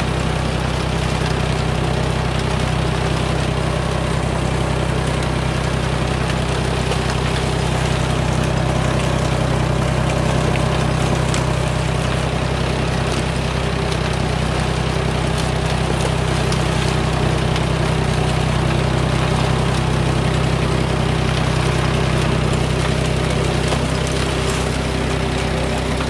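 Engine running steadily with a low, even drone as an old-time corn binder cuts and ties corn into bundles.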